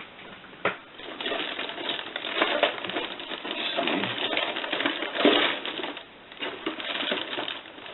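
Small RC car tires and wheels being handled close to the microphone: irregular rustling with many small clicks.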